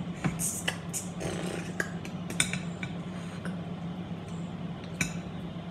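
Kitchen tongs clicking and tapping against a glass bowl while rice salad is mixed: a quick run of sharp clicks, then one more about five seconds in, over a steady low hum.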